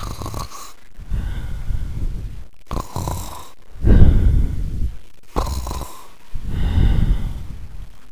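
Snoring performed by a person's voice for a sleeping character: three drawn-out snore breaths, each a short wheezy intake and a longer rasping out-breath, about every two and a half seconds. The middle one is the loudest.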